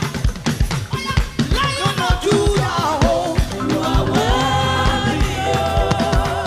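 Gospel praise music: voices singing a melody with held notes over a steady drum-kit beat and a bass line.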